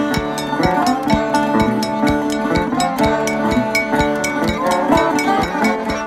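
Background music: plucked strings over held notes and light percussion with a steady beat.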